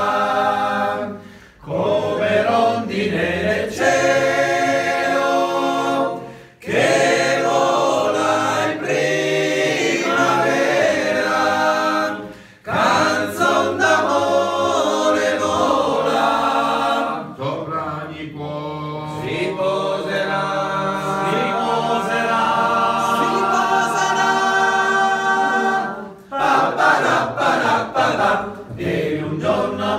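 A group of men singing an Italian song together a cappella, without instruments, in long phrases with brief breaks between them.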